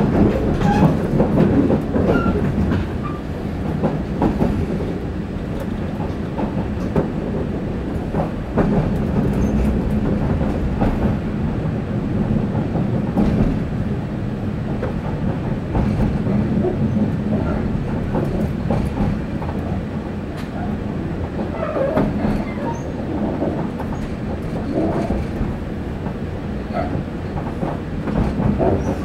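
JR 189 series electric train heard from inside the passenger cabin while running: a steady rumble of wheels on rail, with the clickety-clack of rail joints and scattered clicks.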